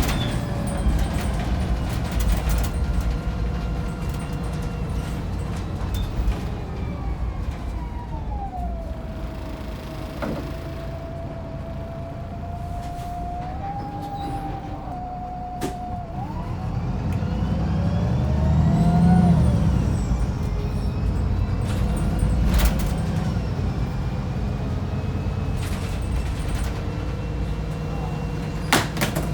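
Wright Pulsar 2 single-deck bus heard from inside while under way: a steady engine drone with a whine that falls and holds, drops out, then rises again as the engine pulls harder and louder about two-thirds through. A few sharp knocks are scattered through it.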